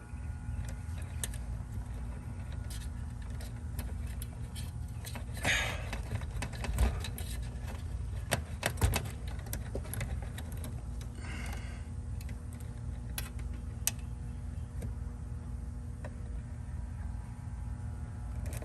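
Scattered metallic clicks and clinks of hand tools and small metal parts being handled inside a heat pump's outdoor unit, with two brief rustling scrapes, over a steady low electrical hum from the energized unit.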